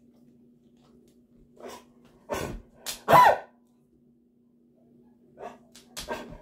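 A dog's hacking cough: a quick run of three or four harsh hacks in the middle, the loudest about three seconds in, then a few lighter hacks near the end. It is an allergy cough that sounds like kennel cough.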